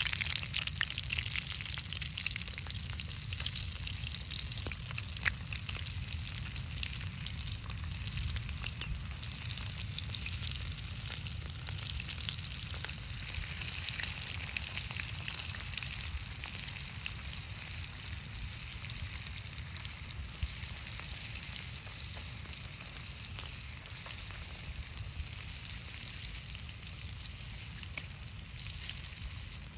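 Flour-coated meat pieces frying in hot oil in a steel pan over a wood fire: a steady sizzle full of fine crackles. It is loudest in the first few seconds as pieces are laid into the oil, then eases a little.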